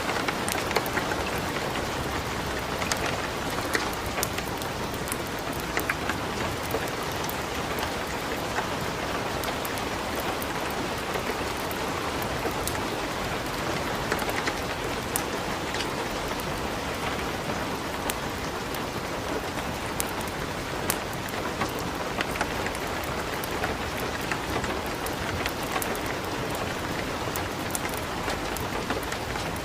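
Steady hiss of light rain, with many sharp little pops and crackles scattered throughout from burning wood in a fireplace.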